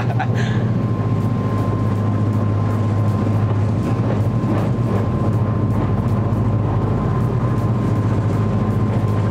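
Twin engines of a fast work boat running steadily at high speed, heard from inside the wheelhouse as a loud, even drone with a thin steady whine above it.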